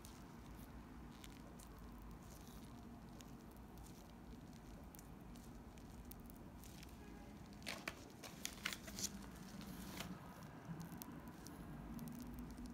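Faint crinkling and squishing of a plastic piping bag as buttercream is squeezed out through a metal petal tip. A short cluster of sharper crackles comes about eight seconds in, over a low steady hum.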